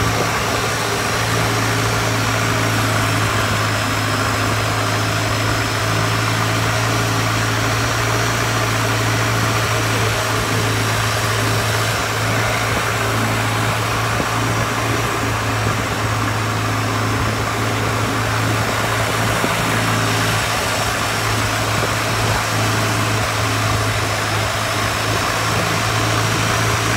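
Long-tail boat engine running steadily at cruising speed, a loud, even drone heard from aboard close to the engine.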